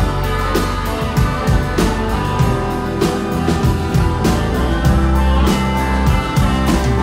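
Live rock band playing: electric bass and electric guitar over a drum kit keeping a steady beat.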